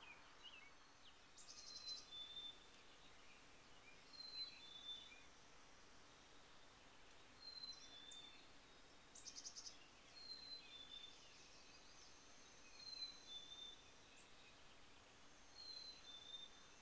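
Chickadee singing its two-note whistled song, a higher note then a slightly lower one, repeated about five times, faint. Twice a short rapid trill of clicky notes cuts in.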